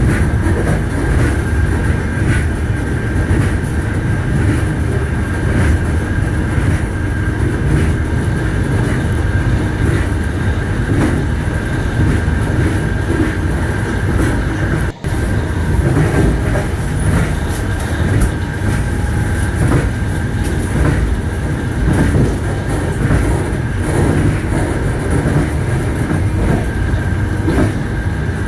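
A passenger train running along the track, a steady low rumble with the wheels clattering over rail joints. The sound breaks off for an instant about halfway through.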